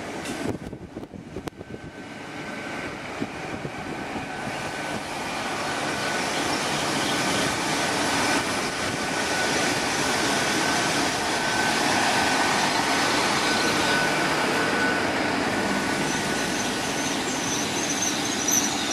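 Great Western Railway Class 800 bi-mode train arriving on its underfloor diesel engines, growing louder over the first several seconds as it draws in, with a steady whine. Near the end come high-pitched squeals as it slows for its stop.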